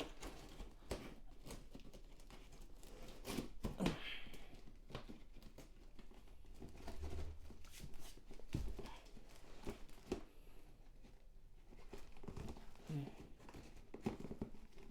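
Packaging being handled and opened: rustling and crinkling with some tearing and scattered small clicks and knocks.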